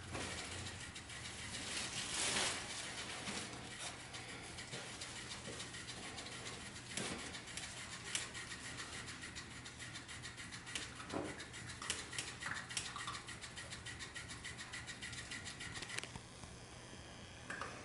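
Puppies moving about on fabric mats and a play tunnel: a steady run of small scratching, rubbing and tapping sounds from paws and bodies, with a few louder scuffs.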